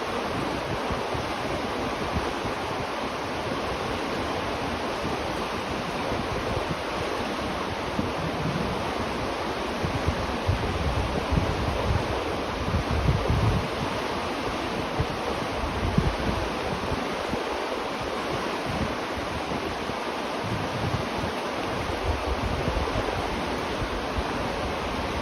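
River water rushing steadily, a dense continuous flow noise, with brief low rumbles swelling in now and then.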